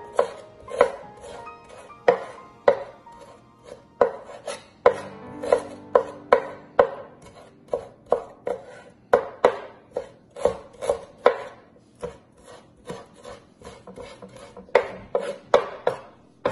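Chef's knife slicing fresh ginger on a wooden cutting board: a run of sharp knocks, about two a second and unevenly spaced, as the blade strikes the board.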